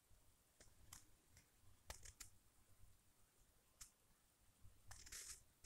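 Near silence: quiet room tone with a few faint, short clicks, a small cluster of them near the end.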